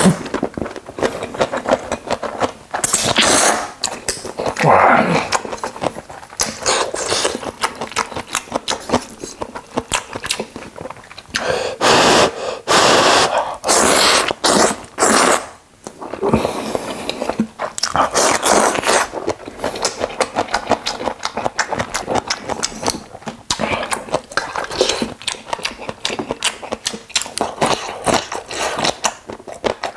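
A person slurping Neoguri ramyun noodles in several long, noisy pulls, with rapid wet chewing clicks between them, close to the microphone.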